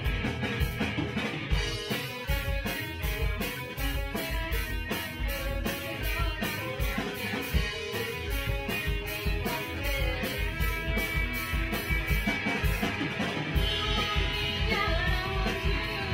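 Live rock band playing: distorted electric guitars over a drum kit keeping a steady beat.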